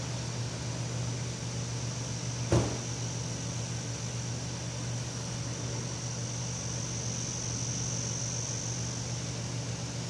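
Hyundai Kona's engine idling steadily after a remote start, with a single sharp click about two and a half seconds in.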